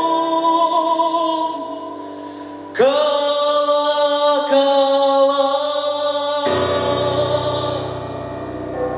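Music: a male voice holding long notes over instrumental accompaniment. A new, louder chord comes in suddenly about three seconds in and holds, then gives way to a softer, lower one about six and a half seconds in.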